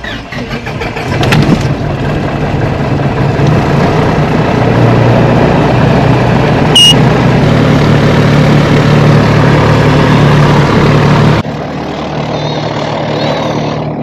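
Piper PA-28 light aircraft's piston engine starting: a second or so of cranking, then it catches and runs steadily and loud, heard from inside the cabin. A short high beep about seven seconds in; the level drops suddenly a few seconds before the end.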